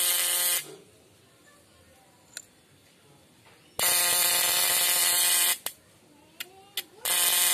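Homemade battery-powered fish stunner buzzing hard in three bursts: a short one at the start, a longer one of nearly two seconds in the middle, and another starting near the end. A few sharp clicks fall between the bursts.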